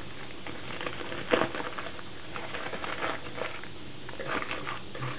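Filter paper being crinkled and folded, with short irregular rustles and a sharper crackle about a second and a half in, as it is prepared for a funnel.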